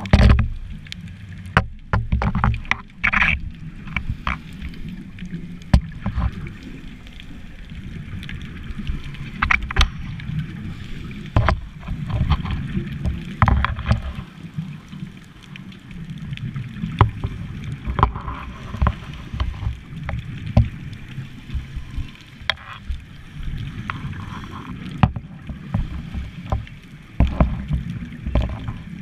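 Muffled underwater sound heard through a camera housing: a continuous low rumble of moving water and bubbles that swells and fades irregularly, with scattered sharp clicks and crackles.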